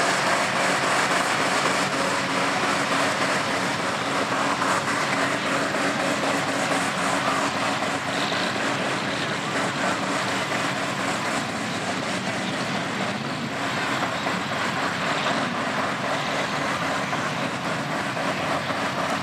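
Chevrolet S10 pickup's engine revving hard and held bouncing off the rev limiter at full throttle, its rear wheels spinning and flinging mud in a mud bog in two-wheel drive.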